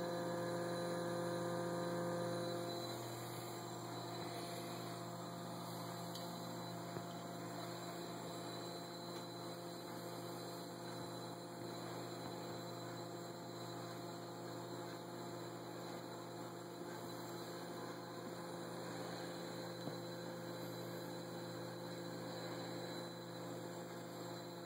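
Bedini SSG energizer running while it charges a lithium-ion laptop battery: a steady hum made of several tones, a little louder and fuller for the first two seconds or so.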